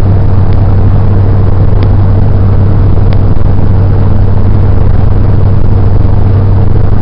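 Steady road and engine noise inside a moving car, a constant low hum under a rushing haze, with a few faint ticks.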